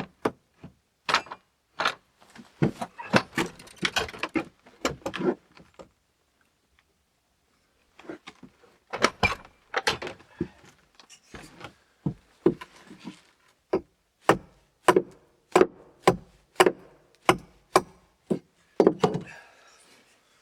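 Small axe chopping into the end of a dry stick, a series of sharp knocks as the end is trimmed flat. A pause of about two seconds comes near the middle, then the strikes fall evenly, about one and a half a second.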